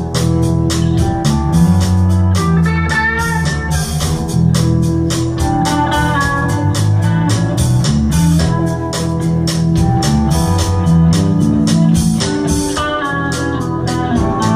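Live British blues band playing: drums keep a steady beat under bass, electric guitar and sustained Hammond-style organ chords from a Roland VK-7 organ.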